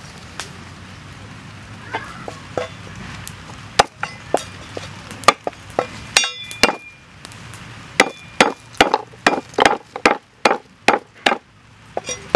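Knife chopping lemongrass stalks on a wooden chopping block. Scattered knocks and taps come first, then a short metallic clink about six seconds in, then a steady run of about nine chops, roughly two to three a second, near the end.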